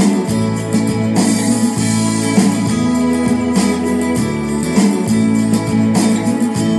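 Background music led by plucked acoustic guitar, with sustained notes and a steady strummed rhythm.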